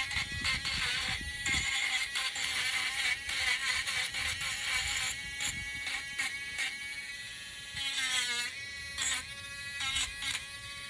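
Small electric sander running with a wooden workpiece held against it, grinding off burrs: a steady motor hum under a scratchy, uneven rasp of wood on abrasive. The hum dips briefly in pitch about eight seconds in.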